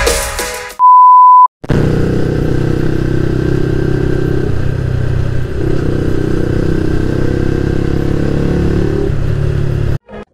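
A moment of electronic music, then a loud steady beep lasting under a second; then a motorcycle engine running steadily at cruising speed, heard close from the rider's seat, its pitch shifting a little midway.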